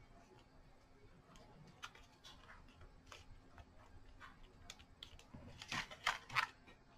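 Faint taps and light paper rustling as die-cut paper pieces are pressed down onto a card, then a few louder rustles of card stock near the end as the card is picked up and handled.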